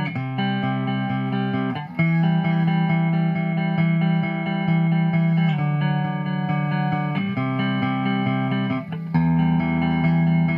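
Electric guitar played through a Hughes & Kettner Tubemeister 18 valve amp head: held, ringing chords that change every couple of seconds, with brief breaks between some of them.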